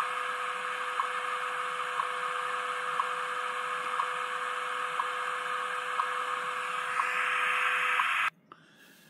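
Shortwave time-signal broadcast on 15 MHz (the NIST time station), received in AM through a small Si4732 receiver's speaker: hissing static with a tick every second over a steady tone. The tone stops about eight seconds in, and the sound cuts off just after.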